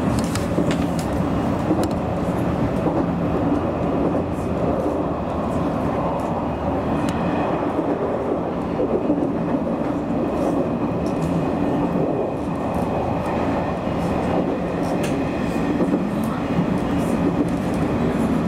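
Nishitetsu electric express train running, heard from inside the front cab: a steady rumble of wheels and motors with occasional short clicks from the rails.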